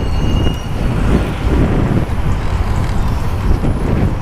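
Wind buffeting the microphone of a helmet-mounted camera on a moving bicycle: a steady, irregular low rumble with faint road noise underneath.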